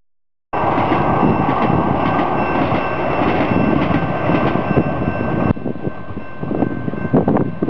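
Red San Diego Trolley light-rail train passing: a steady rush of wheels on rail with a few thin, steady high tones over it. It starts after half a second of silence and drops quieter about five and a half seconds in. Near the end, wind buffets the microphone.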